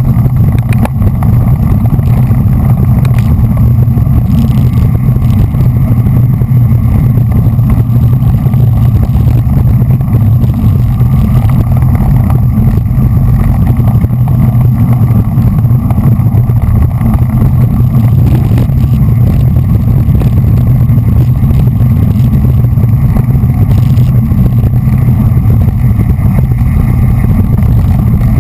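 Steady, loud wind rumble on a GoPro camera's microphone on a bicycle moving at race speed in a bunch of road cyclists.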